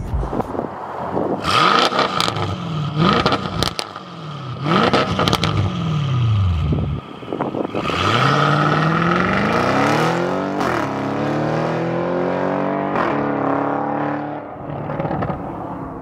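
2017 Audi S7's twin-turbo V8 through a Fi Exhaust valvetronic cat-back with APR catless downpipes. It revs, rising and falling in pitch several times, with sharp cracks. Then it pulls hard up through the gears, the pitch dropping twice at the gear changes, and fades near the end.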